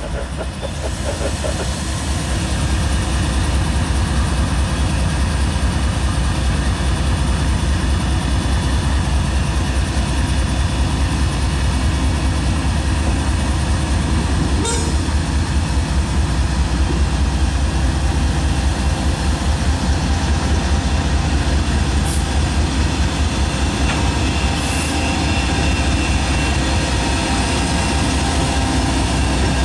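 Norfolk Southern diesel locomotives running at close range, a steady deep engine rumble with the noise of a freight train on the rails.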